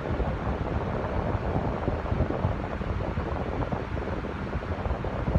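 Electric fan running steadily, a low rushing noise from its air blowing across the phone's microphone.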